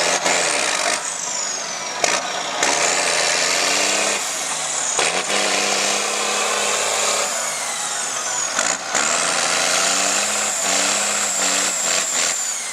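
LIAZ trial truck's diesel engine working under load as the truck crawls over sandy ruts, its pitch rising and falling with the throttle, alongside a high whine that sweeps up and down. A few sharp knocks come through over the engine.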